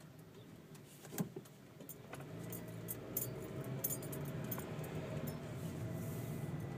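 Inside a slowly moving car: steady low engine and road noise. There is one sharp click about a second in, and from about two seconds in light metallic jingling, heard as many short clicks.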